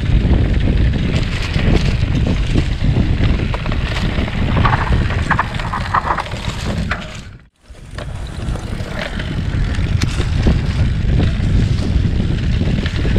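Wind buffeting the microphone of a camera riding along on a moving mountain bike, with many small knocks and rattles as it rolls over rough ground, and a few short high squeaks about five seconds in. The sound cuts out abruptly for a moment past the middle, then comes back.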